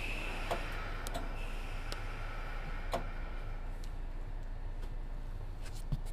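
Inside a Sotetsu 7000-series electric train car standing at the platform before departure: a steady low hum with scattered light clicks and taps, and faint high tones that fade out in the first few seconds.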